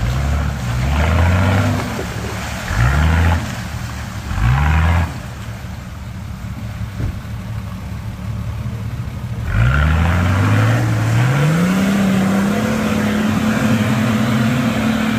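Four-wheel-drive's engine revved in three short bursts, then, about ten seconds in, a long rev that climbs and holds high, as its wheels spin in deep mud on a climb without a front locker.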